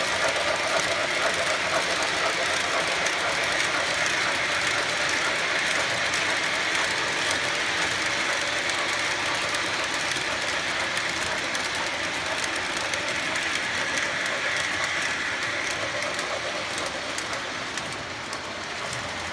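Cars of a long model passenger train rolling past on the track: a steady rolling noise with rapid clicking of the wheels, easing off slightly near the end.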